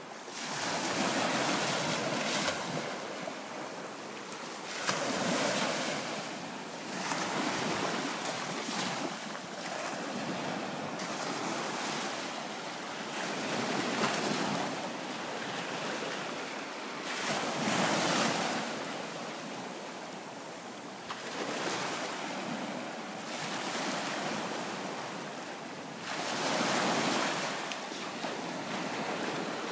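Small bay waves breaking and washing up a sandy beach, the wash swelling and fading every few seconds.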